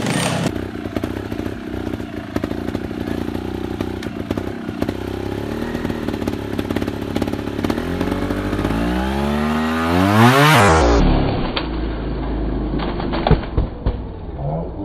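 Trials motorcycle engine running at a low, steady speed, then revved hard with a sharply rising pitch about eight to ten seconds in. A few sharp knocks follow near the end.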